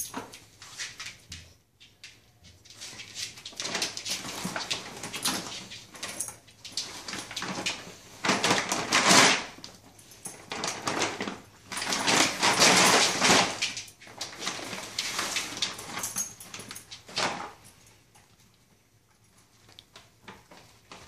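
Large dog food bag crinkling and rustling in bursts of a few seconds each as a dog burrows its head inside it and pushes it across the floor; it goes much quieter near the end.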